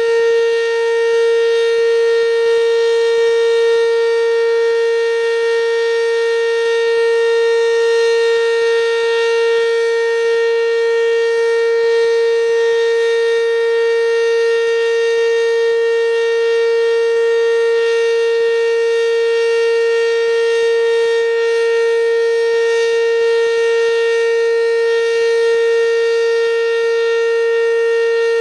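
ACA Banshee outdoor warning siren sounding a steady tone during its weekly test. The pitch holds level throughout, with many overtones above it.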